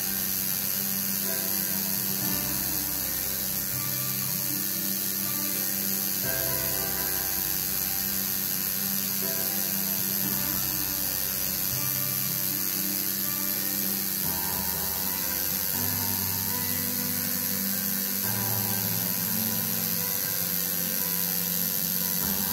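Home-rebuilt coil tattoo machine with a single needle buzzing steadily as it inks lettering into skin.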